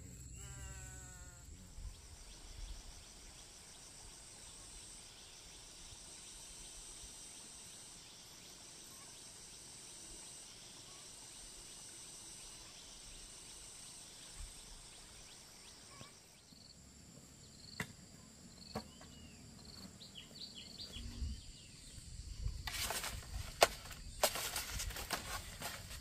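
Rural outdoor ambience: insects droning steadily, with a few scattered bird chirps. It opens with a short falling call, and near the end comes a run of sharp clicks and knocks.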